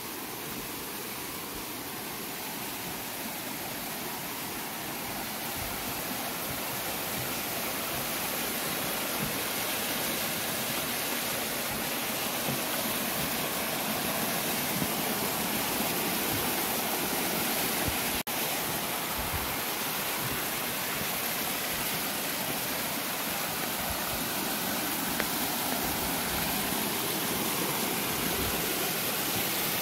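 Rain-swollen mountain stream rushing and splashing down a rocky channel in spate after typhoon rain. It is a steady rush that grows louder over the first several seconds.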